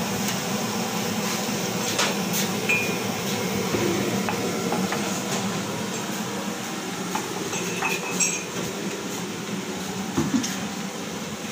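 Dishes and utensils clinking and knocking now and then, with a few sharp clinks about two seconds in and again around eight seconds, over steady background noise.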